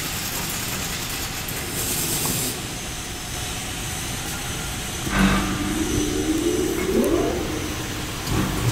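Double-side woodworking machine with its cutter heads running steadily; about five seconds in, boards start going through and the cutting begins, suddenly louder and rougher, with a pitch that slides up and drops again over the next two seconds. Another short burst of cutting comes near the end.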